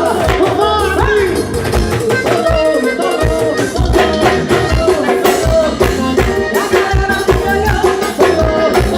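Live forró band playing, with a steady drum beat, a shaker and melodic lines over it.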